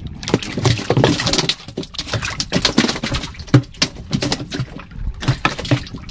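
A freshly caught long fish flapping and slapping inside a wooden boat: a rapid, irregular run of knocks and thumps that stops near the end.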